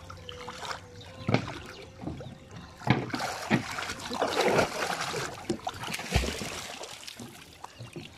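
Water splashing as a person wades beside a wooden boat and climbs aboard, with several sharp knocks and one deep thump about six seconds in.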